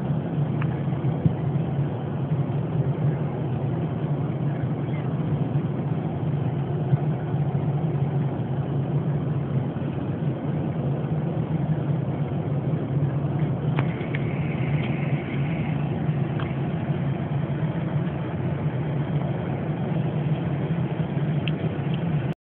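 Steady low drone of an airliner's cabin, the engine and air noise running evenly throughout, with a faint higher hiss for a couple of seconds past the middle.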